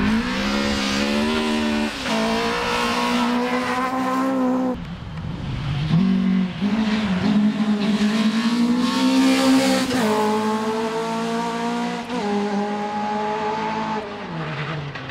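Toyota Corolla GT AE86 rally car's four-cylinder twin-cam engine run hard at high revs, its pitch stepping down and climbing again several times, with a clear drop a little before the midpoint and another near the end.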